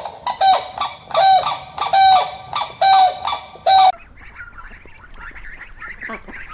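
An animal calling: five short, loud, pitched calls in quick succession, about one every 0.7 seconds. About four seconds in the sound cuts abruptly to fainter chirping and chattering calls over a steady hiss.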